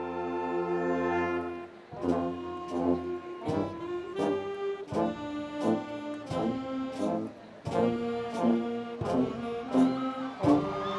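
Brass music: a long held brass chord, then a run of short, punchy brass chords punctuated by drum hits.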